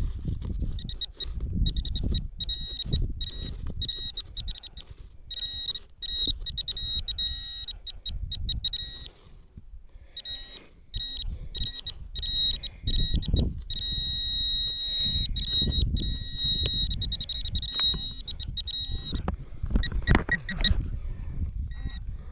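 Handheld metal-detecting pinpointer probing soil in a dug hole, giving a high electronic beep. The beep comes in quick pulsing runs, drops out briefly about nine seconds in, then holds nearly steady in the middle stretch: the pinpointer signalling that it is right on a buried metal object. Scraping and rustling of dry soil under it.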